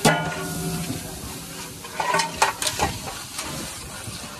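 A steel plate knocks on the rim of a large steel cooking pot as spices are tipped in, and the pot rings for about a second. A long steel ladle then stirs the masala, clanking against the pot a few times around two seconds in, over a steady frying hiss.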